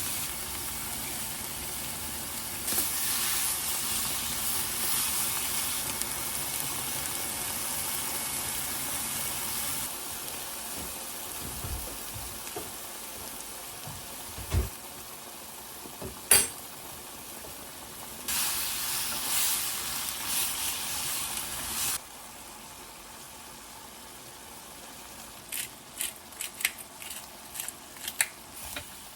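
Food sizzling in a frying pan, with a knock and a sharp clink of a utensil against the pan about halfway through. The sizzling swells louder for a few seconds past the middle, then drops and gives way to quick light clicks of stirring near the end.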